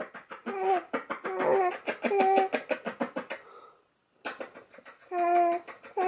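Baby laughing: quick breathy giggles, several a second, that break off briefly about four seconds in and then start again.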